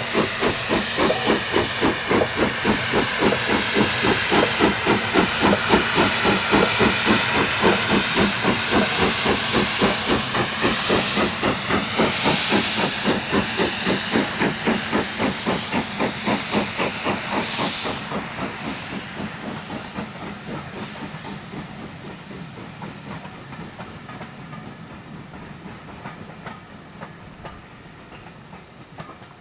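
Steam locomotive working under steam, its exhaust beating in an even, rapid chuff over loud hissing steam. The hiss stops suddenly about two-thirds of the way through, and the chuffing fades away as the locomotive moves off.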